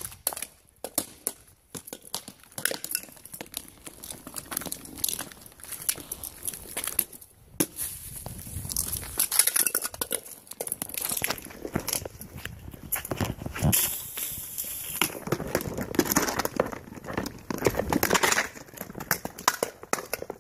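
Hard-shell helmets being kicked and trampled on stone paving: irregular clattering knocks and scrapes as they hit and skid across the stones, with scuffing footsteps between.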